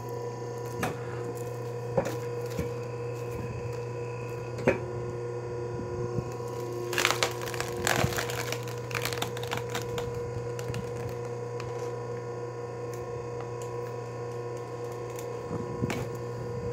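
Electric log splitter's motor humming steadily as it forces a log apart. The wood gives a few sharp snaps in the first few seconds, then a burst of cracking and splintering about seven to nine seconds in.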